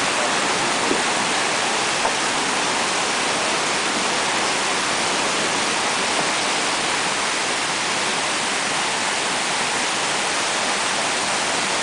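Glacial lake outburst flood torrent rushing over rocks and boulders: a steady, dense rush of water.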